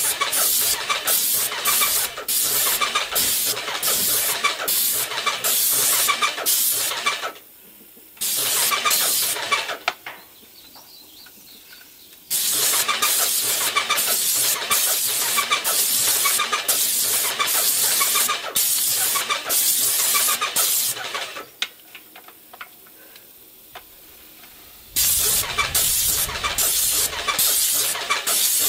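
Cheap electric airless paint sprayer running while latex paint is sprayed: its pump pulses at about two strokes a second under a spray hiss. It stops three times as the trigger is let off, for about a second, about two seconds and about three seconds, then starts pulsing again.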